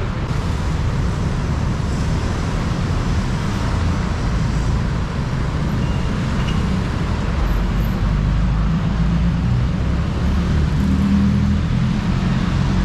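Steady road traffic rumble, a continuous low drone of passing vehicles with no single event standing out.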